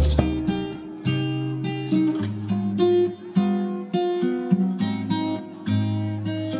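Background music: an acoustic guitar strumming and picking chords.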